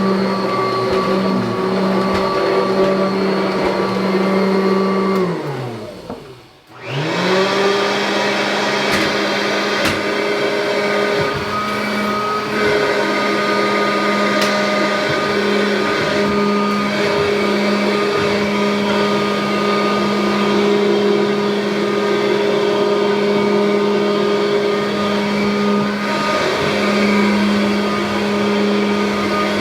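1984 Kirby Heritage vacuum cleaner's motor running with a steady whine. About five seconds in it is switched off and winds down in pitch almost to a stop, then is switched back on and spins straight back up to full speed, running steadily again.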